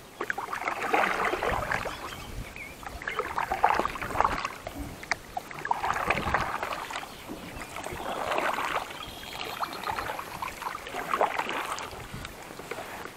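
A paddle stroking a small boat through calm water, five strokes about two and a half seconds apart, each a swishing splash with drips.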